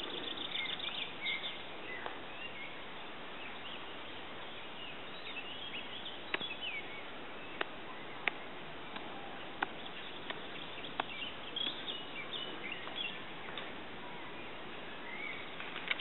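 Small birds chirping and singing in short high calls over a steady background hiss, with a handful of sharp clicks in the middle.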